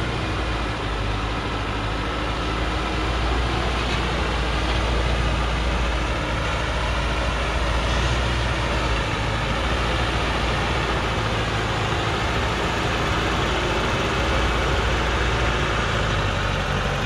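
Engine of a Hoa Mai diesel truck loaded with acacia logs, running steadily as the truck crawls over rocky ground.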